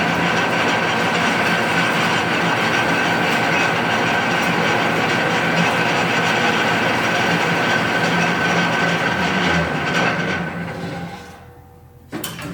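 Marvel Series 8 Mark I vertical band saw running with a steady whine. It is switched off about ten seconds in and winds down to stillness, and a couple of knocks follow near the end.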